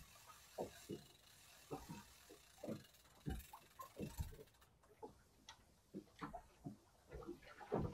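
Faint, irregular ticks and knocks, one or two a second, from a small boat and its fishing tackle while a line is reeled in and a small fish is swung aboard.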